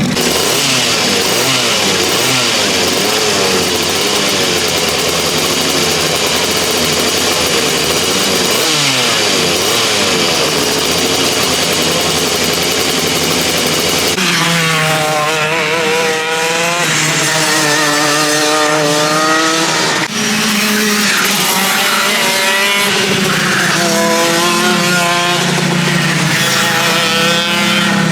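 Racing go-kart engines on track, their high-pitched buzz rising and falling as the karts accelerate, brake and pass. The sound changes abruptly twice, about a third and about two thirds of the way through, as different track clips follow one another.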